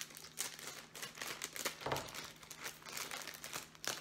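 Thin plastic bag of Lego pieces crinkling and rustling in the hands as it is cut open with scissors, in a rapid irregular crackle.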